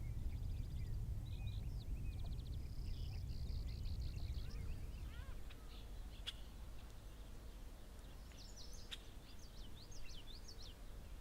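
Several small birds chirping and trilling, with short rapid trills in the first few seconds and clusters of quick rising and falling notes near the end, over a steady low rumble.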